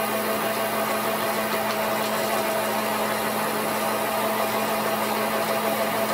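Bell & Howell Filmo Picture Master 8mm projector's electric drive motor and mechanism running steadily in rewind with a constant hum. It is a little noisy, which the owner thinks means the mechanism needs lubrication.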